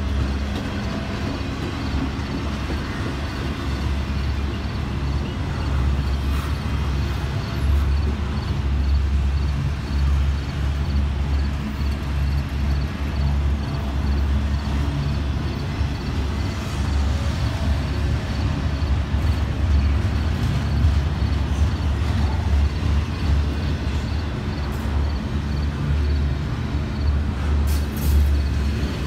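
Intermodal freight cars, double-stack well cars and spine cars, rolling past close by: a steady rumble of steel wheels on the rails.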